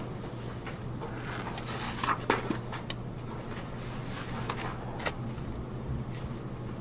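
Meeting-room pause: a steady low electrical hum with a few scattered light clicks and rustles.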